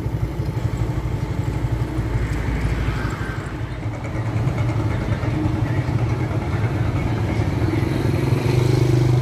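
Motor vehicle engine running steadily with a low road rumble; the engine note grows louder near the end.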